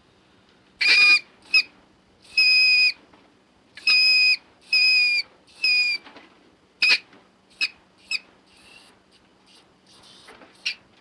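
Mink screaming: a run of shrill, high-pitched squeals, each held at a steady pitch for about half a second, followed by a few shorter, sharp squeaks near the end.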